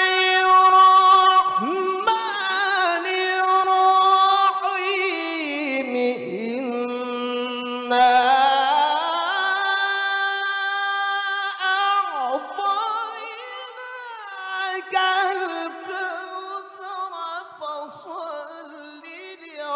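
A male qari reciting the Quran in the melodic tilawah style through a handheld microphone: long drawn-out notes with wavering ornaments. The melody climbs to a higher pitch about 8 seconds in, falls back a few seconds later, and grows softer toward the end.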